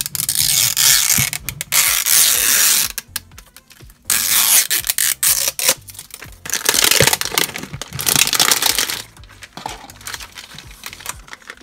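Plastic packaging crinkling and tearing as a pull-tab seal is ripped open and the wrapper pulled off, in several long loud rustling stretches with short pauses between them.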